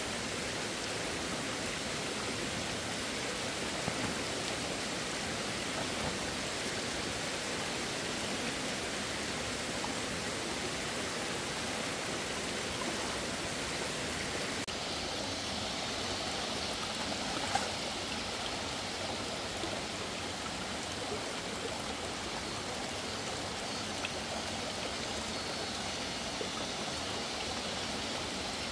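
Steady rush of flowing stream water, with an occasional light click.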